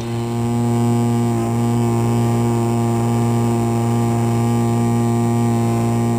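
Great Planes Avistar's 30cc two-stroke gas engine running at high throttle, a steady unchanging drone heard close up from on board the model plane in its climb-out.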